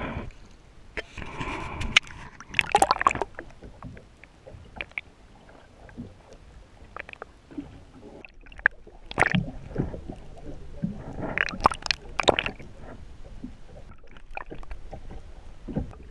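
Seawater sloshing and gurgling around an action camera dipped at the surface beside a boat hull, with irregular sharp splashes; the loudest come about two to three seconds in, around nine seconds, and again around eleven to twelve seconds.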